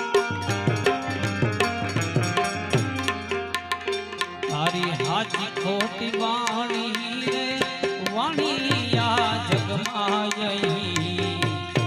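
Instrumental interlude of a Gujarati devotional song: tabla keeping a steady rhythm, its bass drum strokes gliding in pitch, under held accompanying tones. About four and a half seconds in, a melodic lead instrument enters, playing ornamented phrases with vibrato.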